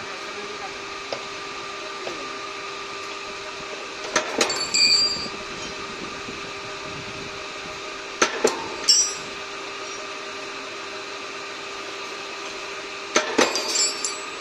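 Electric steel bar bending machine running with a steady motor hum. Three times, about every four to five seconds, a thin steel rod is worked in it with a short cluster of sharp metallic clanks.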